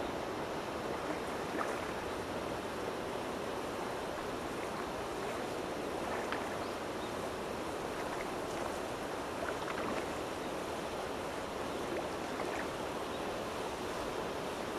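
Steady rush of flowing water, with a few faint ticks scattered through it.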